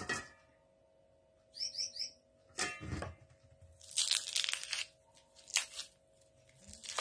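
Pomelo flesh and pith cracking and tearing as hands pull the peeled fruit apart, in a few short crackling bursts, the loudest about four seconds in.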